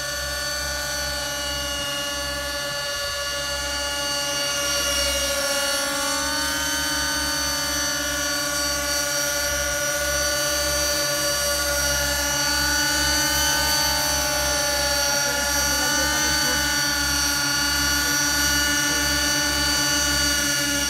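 Radio-controlled model helicopters hovering and flying low: a steady, high, many-toned whine from their motors and rotors. The pitch wavers a little as they manoeuvre.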